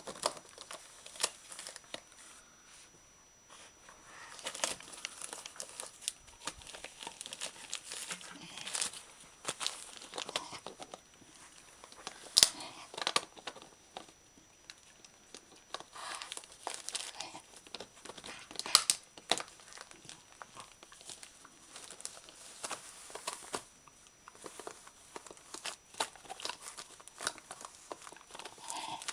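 A wire fox terrier tearing and crumpling the wrapping paper off a gift-wrapped crunchy chew bone with its teeth and paws: irregular rustling and ripping of paper, with two sharper, louder rips about twelve and nineteen seconds in.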